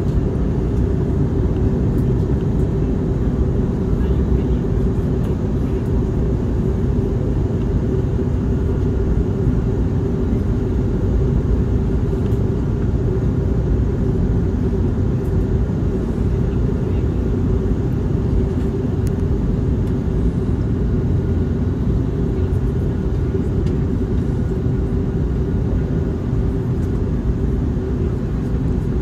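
Steady cabin noise inside an Airbus A321neo in flight: the drone of its Pratt & Whitney PW1100G geared turbofan engines and the rush of air past the fuselage, with a constant low hum and no change in level.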